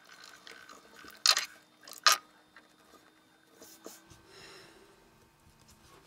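Knife blade cutting into a coax cable's foil-wrapped inner insulation as the cable is rolled against it: two short, loud scrapes a little under a second apart, then fainter scraping and rustling as the cut piece is worked off the center conductor.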